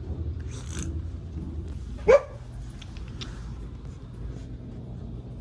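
A cat gives one short meow about two seconds in, sharply rising in pitch, over a low steady hum and a few faint rustles.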